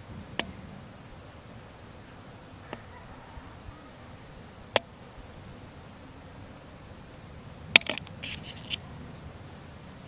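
Quiet outdoor garden ambience with a few faint bird chirps and several sharp clicks, the loudest a quick cluster about eight seconds in.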